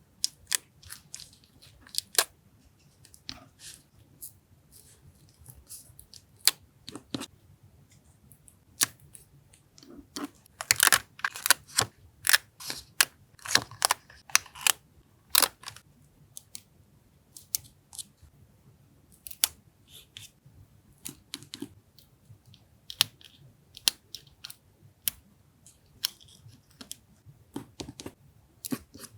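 Paper collage materials being handled, cut and torn at a desk: crisp rustles, taps and snips in irregular short bursts, busiest around the middle. A faint steady low hum from a nearby refrigerator runs underneath.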